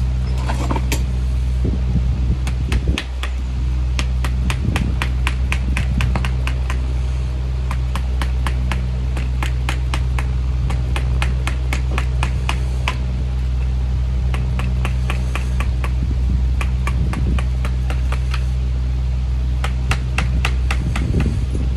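Farrier's hammer tapping nails on a horse's shod hoof resting on a hoof stand: quick light strikes about three a second, in runs broken by short pauses. A steady low hum runs underneath.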